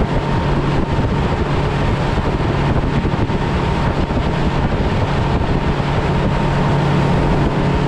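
Fishing boat running at speed across open water: a steady outboard-engine drone with the rush of water along the hull, and wind buffeting the microphone.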